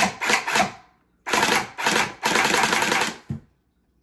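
Ctffnny dual-barrel Gatling gel blaster firing gel balls: three quick shots, then a burst of rapid fire lasting about two seconds, ending in a short click.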